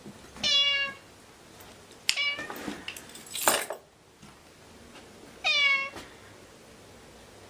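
A cat meowing three times, short high meows about half a second long, with a loud burst of hissing noise about three and a half seconds in.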